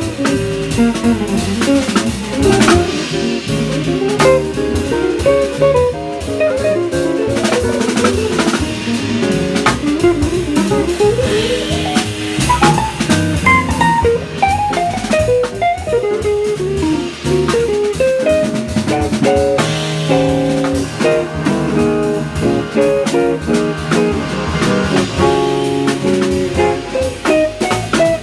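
Live small-group jazz: an archtop electric guitar plays a line of single notes over plucked upright bass and a drum kit keeping time on cymbals and drums.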